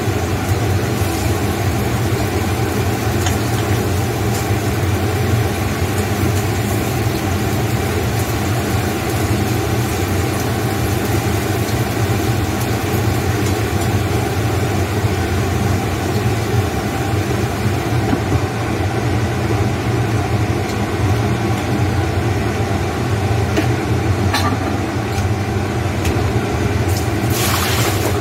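Pork chop slices frying in a pan on a gas hob, sizzling over a steady low hum, with a utensil stirring. Near the end there is a clatter as a glass lid goes on the pan.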